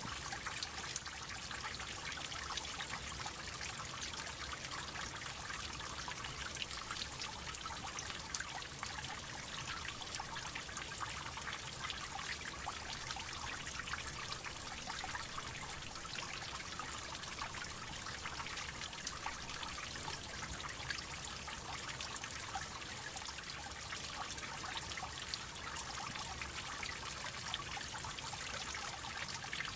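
Many water droplets falling steadily: a dense, continuous run of small drips and splashes that never lets up.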